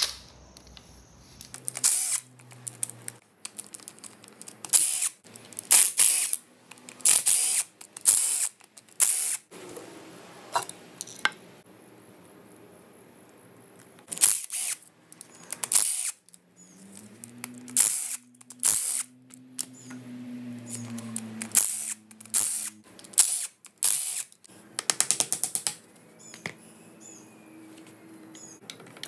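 Cordless power ratchet running in repeated short bursts as it spins out the 10 mm bolts holding a Subaru EJ engine's valve cover and camshaft caps. Between the bursts come lighter metal clicks of bolts and parts being handled.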